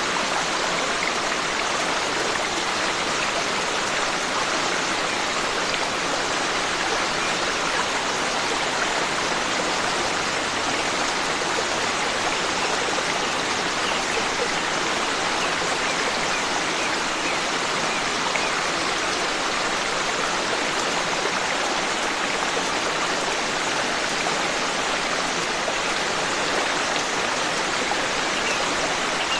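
Forest stream flowing, a steady rush of running water with no breaks.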